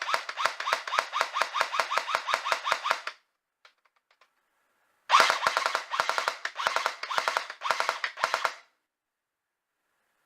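Airsoft MP5 replica firing on full auto in two long bursts of rapid shots, the first stopping about three seconds in and the second running for about three and a half seconds, with a few light clicks between them.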